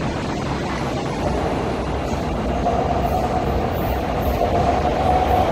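Guangzhou Metro Line 14 electric train approaching along the platform track, its running rumble slowly growing louder. A steady high whine comes in about halfway through and strengthens as it nears.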